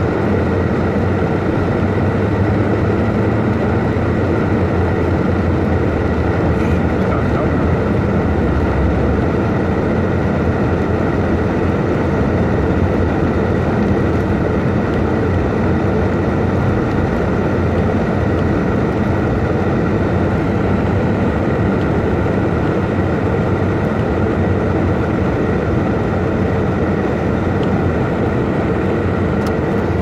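A car's engine and tyres on a snow-covered road, heard from inside the cabin while driving: a steady, even rumble.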